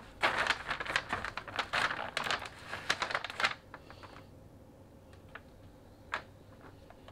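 Sharp knife scoring through raw pork skin, a dense run of crackly scratching clicks lasting about three seconds, followed by a few light ticks.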